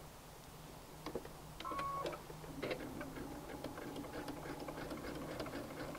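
Computerized sewing machine: a click and a short beep, then about two and a half seconds in the machine starts sewing a zigzag stitch, running steadily with a regular ticking of the needle. It is stitching the overlapped ends of elastic to secure them.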